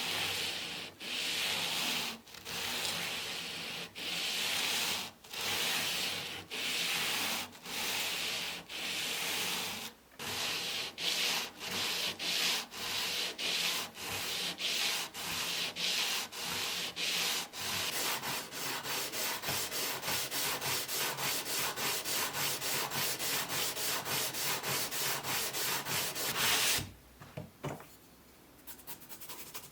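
Hand sanding in back-and-forth strokes, first long and slow, then quickening to short strokes about three a second, stopping abruptly near the end.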